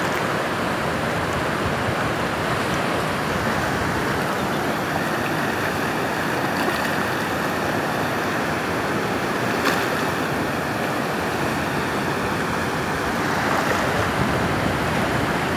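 Fast mountain river running through rapids over boulders: a steady rush of white water.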